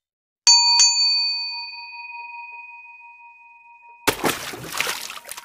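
Sound effect for a YouTube subscribe-button animation: two quick bell dings about half a second in, ringing on and slowly fading, then a noisy whoosh about four seconds in as the button slides away.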